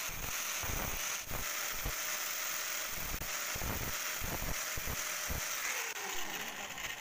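Electric angle grinder with an abrasive disc grinding down a weld on a worn oil-pump drive shaft, a steady high grinding hiss. Near the end the grinder winds down with a falling tone.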